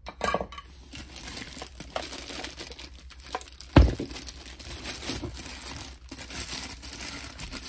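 Clear plastic bag crinkling and rustling as it is pulled off a new electric air duster, with one dull thump about four seconds in.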